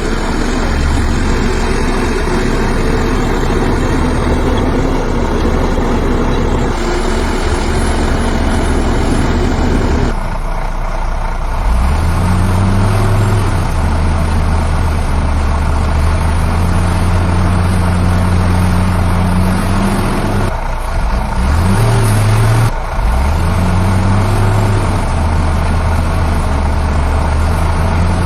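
Heavy diesel machinery engines running loudly and revving up several times. The engine note jumps abruptly a few times, about a third of the way in and again past the two-thirds mark.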